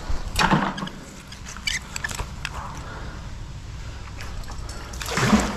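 A splash as the rope-tied fishing magnet churns the water about half a second in, followed by a few light metallic clinks. A short voice-like sound near the end.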